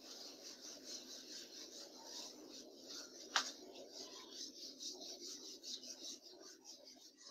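Whiteboard duster rubbing back and forth across a whiteboard, wiping off the writing in quick strokes, several a second. A single sharp knock comes about three and a half seconds in.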